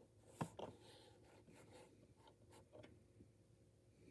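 Faint handling sounds of a plastic HO-scale model locomotive being moved on its tissue paper and cardboard box: one sharp tap about half a second in, then a few light ticks and rustles.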